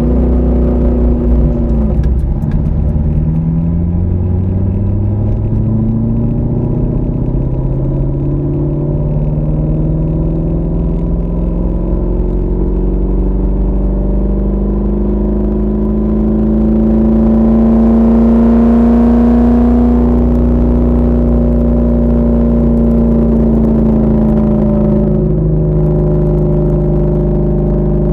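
Car engine and road noise heard from inside the cabin while driving. The engine note climbs slowly as the car gathers speed, holds steady for a few seconds, then drops a little near the end.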